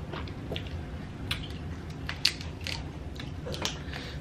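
Close-miked eating of boiled tiger shrimp: scattered sharp clicks and crackles of biting, chewing and peeling the shells.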